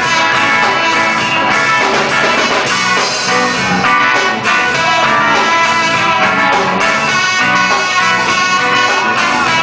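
Live band playing an instrumental passage: trumpets playing a line together over electric guitar and a rhythm section, with no vocals.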